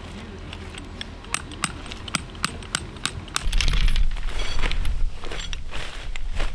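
A string of sharp clicks and taps, about two or three a second, with a heavy low buffeting rumble from about three and a half seconds in, typical of strong wind on the microphone.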